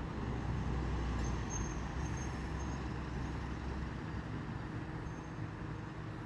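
Steady low rumble of distant city road traffic, heavier for the first few seconds and then easing.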